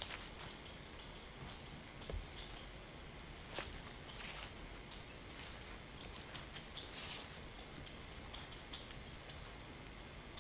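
Insects, likely crickets, chirping: short high chirps about twice a second over a steady high trill, with occasional rustling steps through dry fallen leaves.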